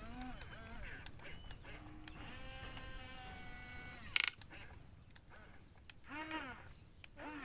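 Electric gear motors of an RC model excavator whining and creaking as the arm and bucket move, with one sharp click about four seconds in. A short nasal call comes near the end.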